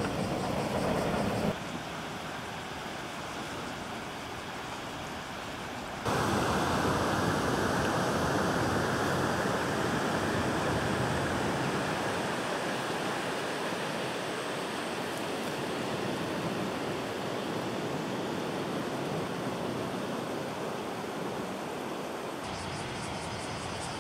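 Muddy, flood-swollen river flowing: a steady rush of water noise, quieter for a few seconds and then louder from about six seconds in. A low rumble in the first second and a half breaks off abruptly.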